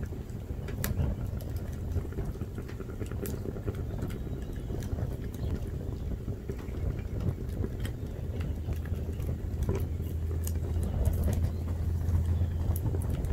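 Plastic Linksys wireless router burning, the flames giving off scattered crackles and pops over a steady low rumble that grows louder in the second half.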